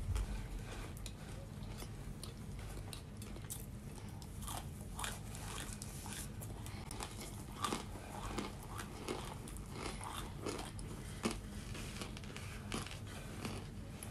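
Close-up mouth sounds of chewing baked cornstarch chunks: irregular crisp crunches and wet chewing, with hands crumbling into loose cornstarch powder.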